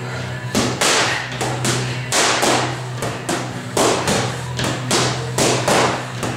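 Boxing gloves punching focus mitts: a quick, uneven run of sharp smacks, about two to three a second, starting about half a second in.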